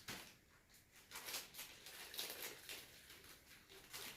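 Faint rustling and crinkling of a package being opened by hand: a run of short, irregular scratchy noises.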